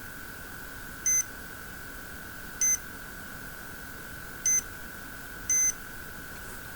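Four short electronic beeps at uneven intervals over a steady faint high-pitched whine.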